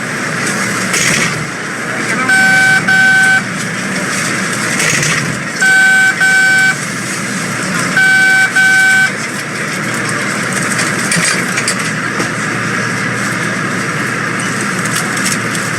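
MBTA Red Line subway car's door-closing warning: a flat double beep sounding three times, a few seconds apart, over the car's steady running noise, which carries on alone after the third pair.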